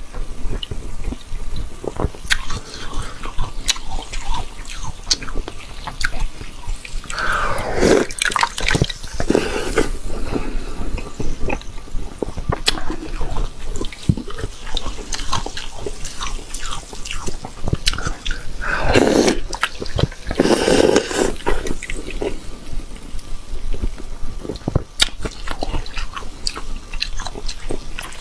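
A block of brown slush ice crackling as it is crushed and broken apart by hand, with meltwater dripping and chunks dropping into a glass dish of liquid. Two louder crunches come about eight seconds in and again around twenty seconds in.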